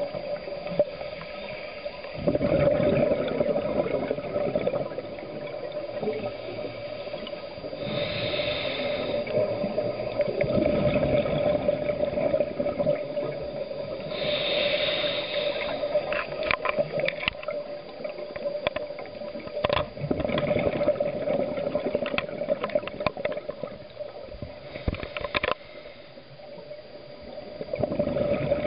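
Scuba diver breathing through a regulator underwater: hissing inhalations and gurgling bursts of exhaled bubbles every few seconds, over a steady hum.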